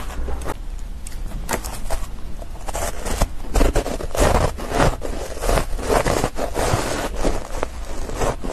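Chewing and crunching a mouthful of ice coated in matcha powder: a dense run of irregular, crisp crunches.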